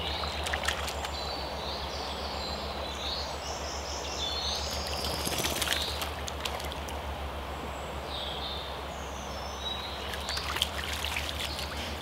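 Shallow river flowing steadily, with small birds singing and light splashing of water around the middle and again near the end.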